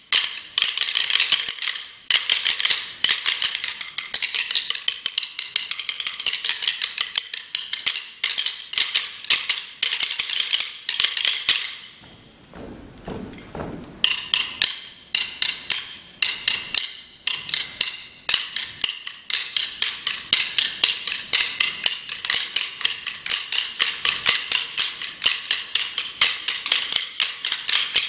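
Wooden drumsticks clicked and struck together by an ensemble in fast, interlocking rhythms: a dense stream of sharp wooden clicks. The clicking stops for about two seconds near the middle, then resumes.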